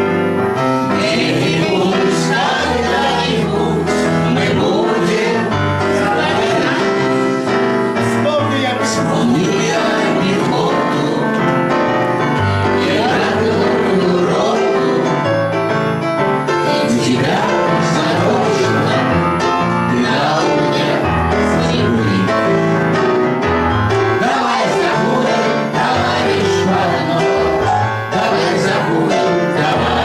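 A man singing with Yamaha electronic keyboard accompaniment, sustained bass notes under the melody, and other voices in the room joining in.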